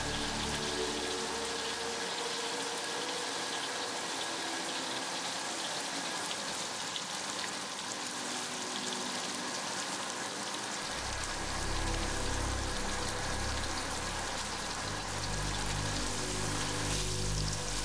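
Breaded pork schnitzels frying in hot vegetable oil in a pan: a steady sizzle with fine crackling.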